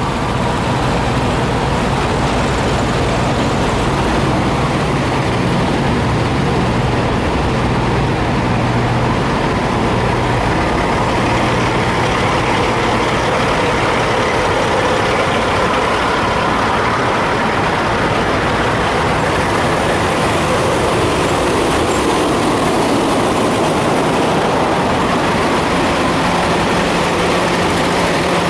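Diesel engines of parked semi trucks idling together in a steady low drone.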